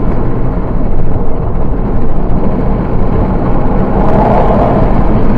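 Steady road and engine noise of a car travelling at highway speed, heard from inside the cabin, with a brief swell about four seconds in as an oncoming tanker truck passes.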